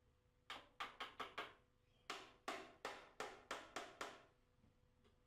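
Hammer tapping panel pins through a wooden dado rail into the wall: a quick run of five taps, a short pause, then about eight more evenly spaced taps.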